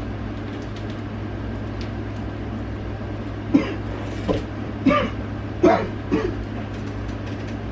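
A person coughing in about five short, sudden bursts from the middle of the stretch on, a staged coughing fit faked for a prank, over a steady low hum.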